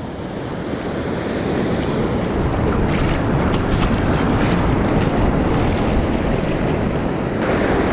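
Ocean surf washing up a sandy beach, a steady rushing that swells slowly, with wind rumbling on the microphone.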